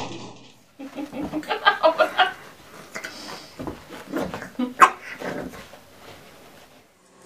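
French bulldog puppy barking and yapping: a quick run of yaps about a second and a half in, then scattered single barks, the loudest near five seconds in.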